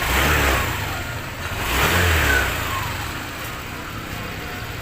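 Honda Click 125 scooter's single-cylinder engine blipped twice, about two seconds apart, then dropping back to a steady idle. The rebuilt engine runs quietly, its knock gone with a new connecting rod and bearing.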